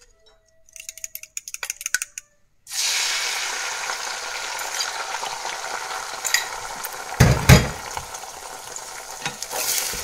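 Beaten eggs hitting hot oil in a kadai: after a few light metal clinks, sizzling starts suddenly about two and a half seconds in and goes on steadily as they are stirred and scrambled. Two heavy knocks come about seven seconds in.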